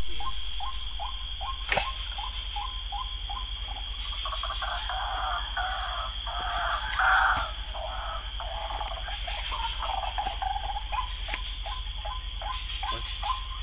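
Frogs calling at night, a short downward-sliding note repeated about three times a second, over a steady high insect chirring. A louder, rougher stretch of noise swells up in the middle, and there is a single sharp click about two seconds in.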